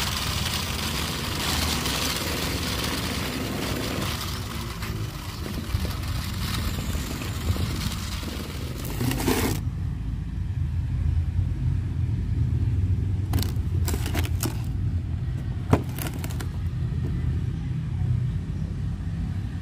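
Toy RC rock crawler driving, its small electric gear motors whirring and its rubber tyres rolling on a hard court. About ten seconds in this cuts to a steady low rumble with a few sharp crinkles and taps from a cardboard toy box being handled, the loudest a little after fifteen seconds.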